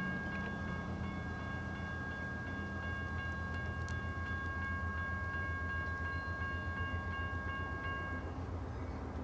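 Freight locomotive's multi-chime air horn held in one long blast that cuts off about eight seconds in, over a steady low rumble.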